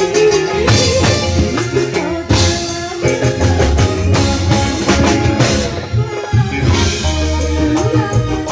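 Live dangdut koplo band music, loud, with a driving drum beat, heavy bass notes and keyboard, and a woman singing through a microphone.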